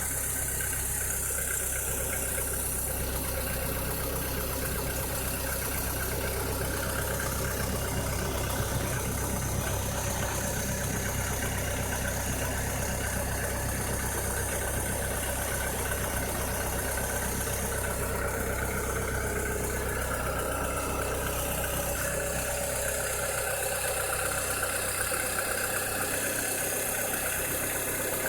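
Volkswagen SpaceFox 1.6 engine idling steadily, with an abnormal noise that the owner calls strange.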